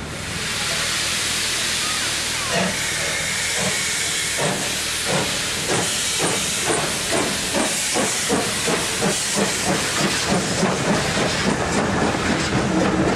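FS Group 625 steam locomotive No. 625.100 pulling away: loud steam hiss, then exhaust chuffs starting a couple of seconds in and quickening steadily as it gathers speed.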